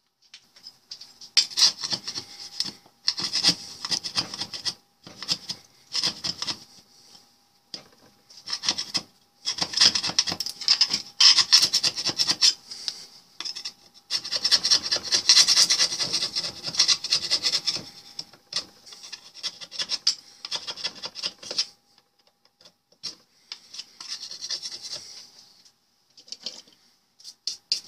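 Flat hand file rasping over the corroded, painted steel case of a Yale lock, scraping rust and flaking paint down to bare metal. The strokes come in irregular runs with short gaps and a longer pause about two-thirds of the way through.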